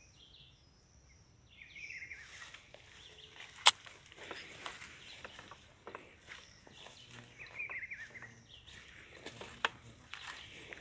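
Footsteps crunching through dry leaf litter and brushing past scrub branches, with one sharp snap about three and a half seconds in. A small bird chirps faintly at the start and again around eight seconds.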